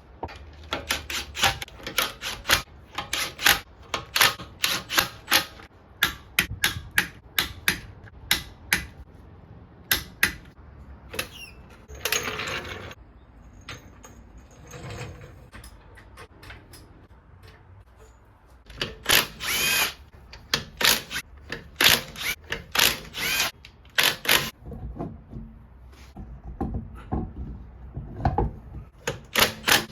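Tool work on a car's wheel nuts during a tyre change. It is a long, irregular string of sharp metallic clicks, broken a few times by a power tool running in short bursts of about a second.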